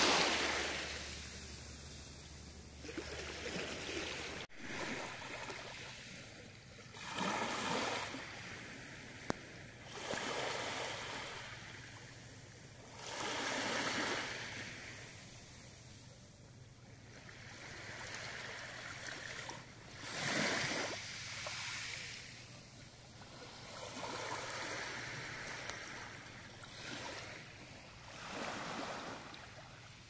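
Small sea waves lapping onto a pebble beach, each one coming in as a swell of hiss that fades away, about every three to four seconds.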